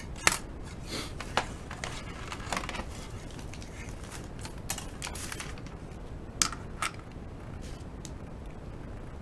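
Paper rustling and a hand brushing over a drawing sheet, with scattered small clicks as drawing tools are handled; the sharpest click comes just after the start and two more close together about six and a half seconds in.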